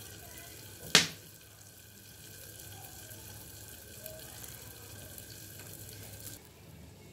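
Tomatoes and onions frying in a lidded pan, a steady gentle sizzle, with one sharp pop about a second in.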